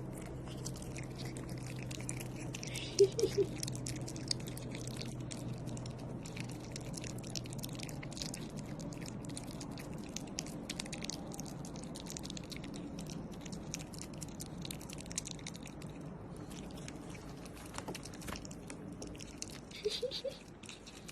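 An otter chewing food, with a dense run of wet, crunchy clicks. Two brief high squeaks cut through it, about three seconds in and again near the end.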